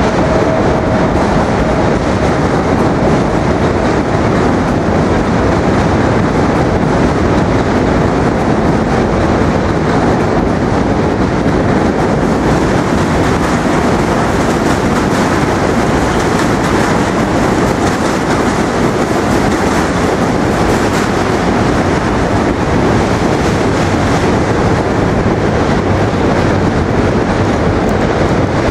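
New York subway train crossing the Manhattan Bridge on the tracks beside the walkway, loud and steady throughout.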